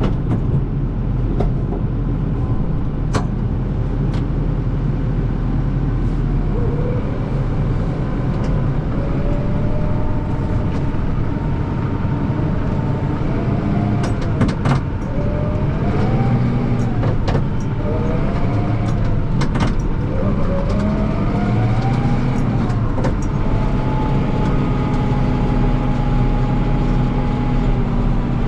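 Kubota M5-111 tractor's diesel engine running steadily under way, with a whine that rises and falls several times in the middle as the revs change. Occasional knocks and rattles come through over the engine.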